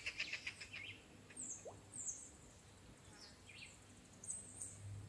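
Faint wild birds calling: a fast pulsed trill that fades out within the first second, then scattered short, high, falling chirps.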